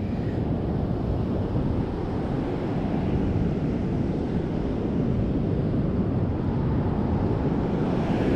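Steady rushing wind buffeting the microphone mixed with the wash of ocean surf breaking on the beach.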